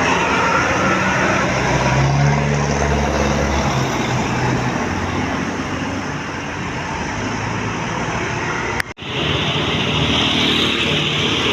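Road traffic noise with a large bus engine running past, loudest a few seconds in. The sound cuts out abruptly for an instant about nine seconds in, then traffic noise carries on.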